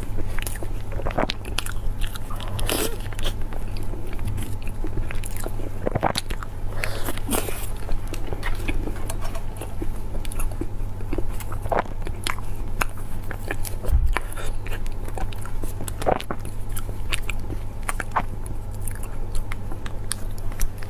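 Close-miked eating: irregular crisp bites and crunches into a chocolate-coated dessert square, with chewing and the crackle of its paper wrapper being peeled back. A steady low hum sits underneath.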